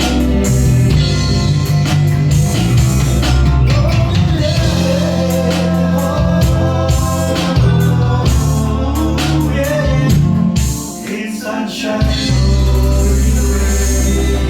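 Band playing a song on bass, guitar, keyboards and drums, with steady drum beats; the bass and low end drop out for about a second near the end before the full band comes back in.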